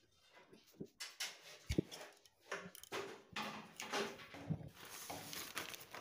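Faint, scattered clicks, knocks and rustles of hands and tools working on cable on a perforated metal cable tray.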